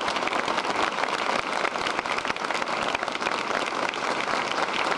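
A large crowd applauding steadily, the dense clapping of many hands.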